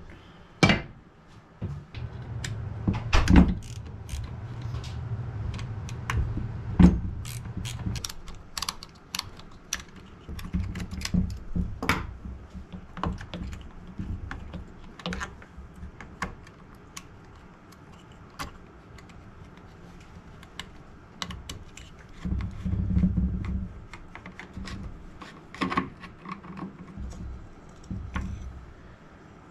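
Irregular small metal clicks and taps of a screwdriver and loose parts being worked in an old Craftsman chainsaw's carburetor compartment. A few louder knocks come about three and seven seconds in, with stretches of low rumbling handling noise.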